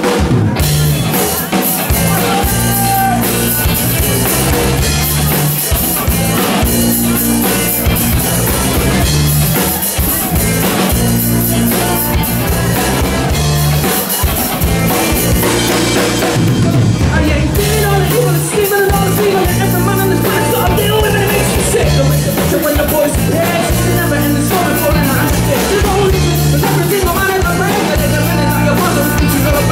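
Live rock band playing a song on electric guitar, bass guitar and drum kit, loud and full with a steadily driving bass line.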